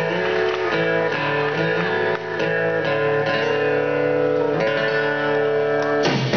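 Live band playing an instrumental guitar passage: guitars strumming and letting chords ring, with a new chord struck every second or so.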